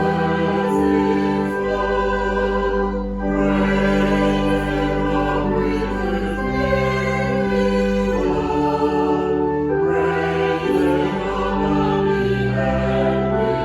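Slow, sustained church music with choral singing: full held chords over a deep bass, moving to a new chord every two to three seconds.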